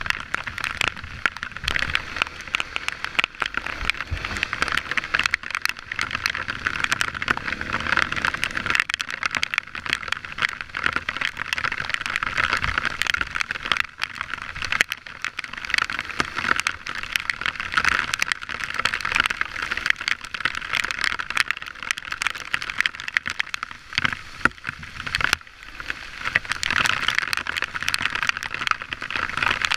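Dirt bike being ridden along a muddy trail, heard from its on-board camera: engine running steadily under a constant noisy rush with many small clicks and rattles.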